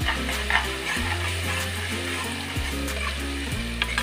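Onions and spice paste frying in hot oil in an aluminium pressure cooker, sizzling as a steel spoon stirs them, with a few sharp clicks of the spoon against the pot. Background music with stepped low notes plays underneath.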